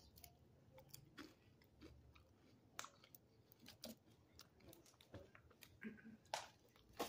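Faint close-miked chewing of a mouthful of flautas: scattered short wet mouth clicks and soft crunches, with pauses between them.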